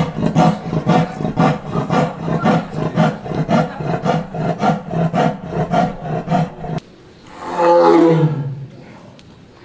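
A big cat calling in a fast, even series of grunts, about three a second. They stop abruptly and are followed by one longer roar that falls in pitch.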